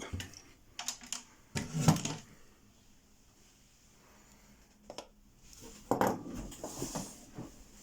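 Metal padlocks clinking and knocking together as one is taken from a pile and handled. There are a few sharp knocks in the first two seconds, then a quiet spell, a single click about five seconds in, and more light rattling near the end.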